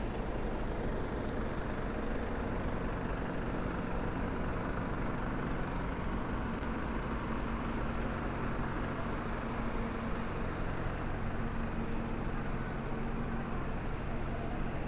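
A large vehicle's engine idling: a steady low hum over city street noise.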